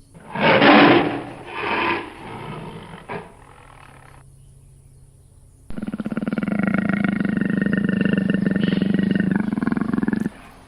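Two wild-animal calls. The first starts loud just after the start and fades away in a few shorter pulses over about four seconds. After a short gap comes a long, even, pitched call of about four and a half seconds that stops suddenly.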